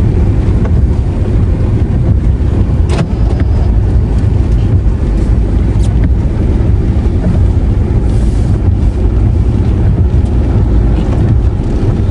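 Steady low rumble of a car being driven on a wet concrete road in the rain, heard from inside the cabin: engine and tyre noise. There are a couple of sharp ticks about three and six seconds in.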